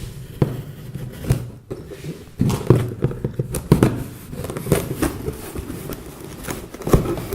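A large cardboard box being handled and opened by hand: irregular knocks, scraping and rustling of cardboard, with a cluster of sharper knocks in the middle.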